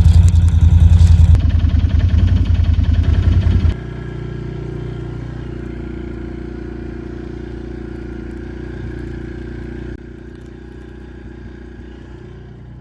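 Can-Am ATV engine running steadily, loud for the first few seconds, then cutting abruptly to a quieter, steady engine drone that drops again a little about two-thirds of the way through.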